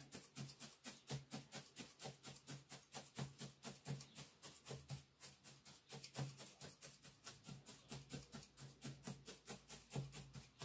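Felting needle stabbing rapidly and repeatedly through wool, about five soft, faint stabs a second, as the wool is felted onto the leg.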